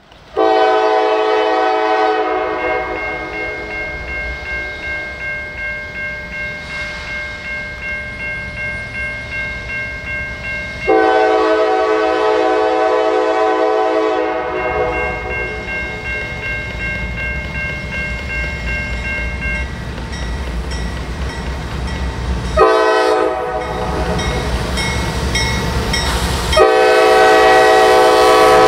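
Norfolk Southern diesel freight locomotive's multi-tone air horn sounding long, long, short, long, the pattern blown for a grade crossing. Under the horn, the locomotives' low engine rumble grows as the train approaches.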